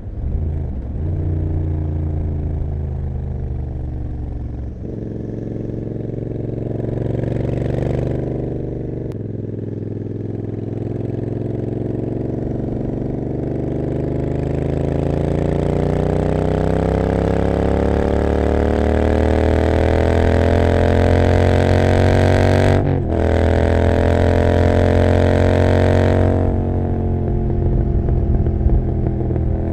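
Royal Enfield Continental GT 650's parallel-twin engine running through an Emgo cafe muffler with no dB killer, under way. After a few gear changes, the engine pitch climbs steadily through a long pull in one gear, dips briefly at a gear change about three-quarters through, rises again, then falls as the throttle closes near the end.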